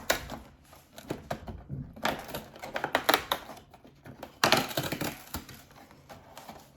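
Cardboard box compartment and plastic packaging being handled and torn open by hand: a run of clicks, crackles and crinkling, with two denser bursts of tearing about two and four and a half seconds in.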